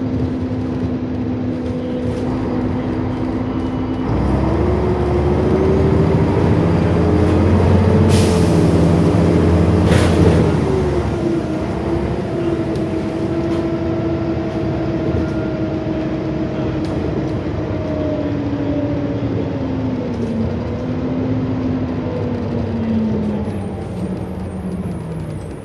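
Volvo Olympian double-decker bus's diesel engine heard from the lower deck, running steadily and then accelerating under load about four seconds in, rising in pitch. A short hiss of air and a sharp knock come around eight and ten seconds in, after which the engine eases off and drops in pitch toward the end.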